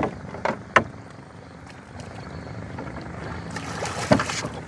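Yellow patin catfish splashing and thrashing at the water's surface beside a small boat as it is landed. A few sharp knocks come in the first second, and the splashing builds near the end with one loud slap about four seconds in.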